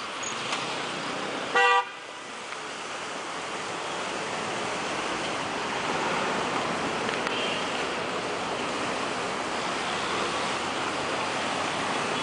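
Street traffic with cars running and passing, and one short car horn toot about a second and a half in, the loudest sound.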